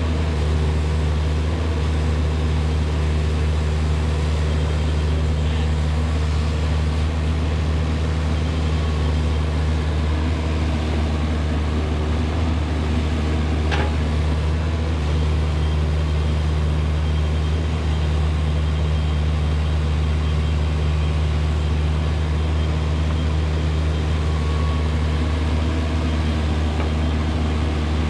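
Diesel engine of Kubota compact digging equipment running steadily at working revs, with a deep, even drone. A single brief tick comes about halfway through.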